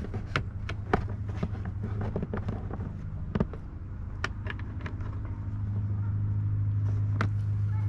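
Scattered sharp clicks and knocks of plastic trim and screws being handled and fitted in a car's interior, over a steady low hum that grows louder in the last couple of seconds.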